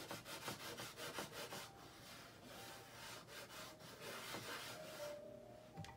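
Green colour being rubbed onto drawing paper in quick back-and-forth strokes, a faint scratchy rubbing.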